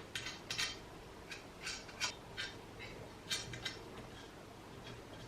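Light, irregular metallic clicks and clinks of hand tools and nuts as the turbo is fastened to the exhaust manifold, about a dozen spread out with no steady rhythm.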